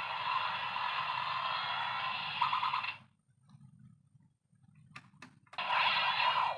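Bandai Kamen Rider Blade toy belt buckle playing an electronic sound effect through its small, tinny speaker for about three seconds. A couple of sharp clicks follow, and another sound effect starts near the end.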